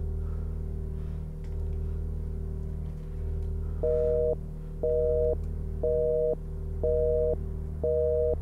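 Telephone busy signal heard through the phone: a two-tone beep, half a second on and half a second off, repeating about once a second and starting about four seconds in, over a low steady drone. It signals that the call is not getting through.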